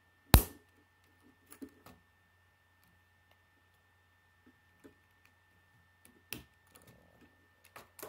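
Plastic K'nex rods and connectors clicking as they are snapped together: one loud sharp snap about half a second in, then a few lighter scattered clicks, with more again near the end.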